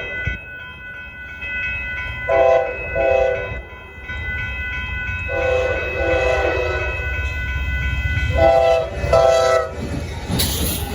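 Amtrak locomotive horn sounding for a grade crossing as a fast passenger train approaches: two short blasts, one long blast, then two more short ones, a chord the railfan calls a little wonky. A steady high ringing from the crossing signal runs underneath and stops near the end, while the train's low rumble builds and a brief rush of noise comes as it passes.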